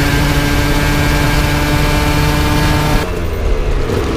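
Aprilia RS 125 two-stroke single running at steady high revs under load, with wind rush over the microphone. About three seconds in, the throttle is rolled off: the engine note and the wind drop suddenly, and the engine falls to a low, soft running note as the bike slows.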